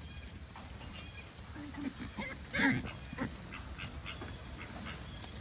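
Farm animals calling: a few soft, short low grunts, then one louder short call about halfway through and another brief grunt just after.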